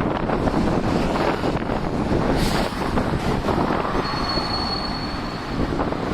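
Streetcar running past with a brief high, steady wheel squeal about two-thirds of the way in, under heavy wind buffeting the microphone.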